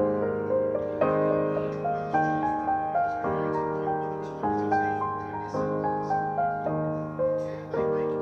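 Background piano music: soft chords struck about once a second, each note dying away, with a simple melody over them.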